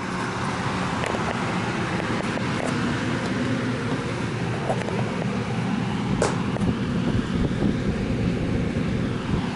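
Steady road and engine noise inside a moving vehicle's cabin, a low rumble under an even hiss, with a few faint clicks.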